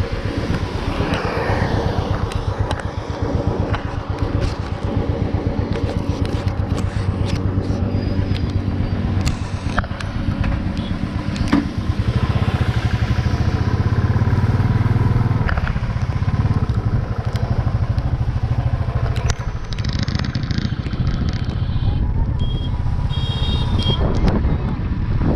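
Motorcycle engine running steadily under way, with wind and road noise; the engine note rises about halfway through and settles back a few seconds later.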